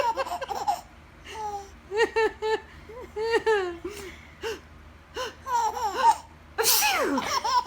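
Baby laughing hard in a string of short, high-pitched bursts, with a louder noisy outburst of falling pitch near the end.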